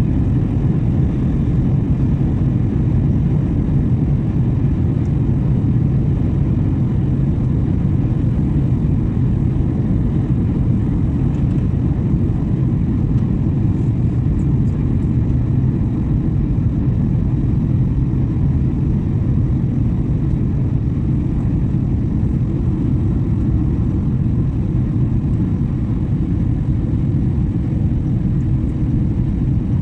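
Steady low drone of an airliner's jet engines and rushing airflow, heard from inside the passenger cabin in flight.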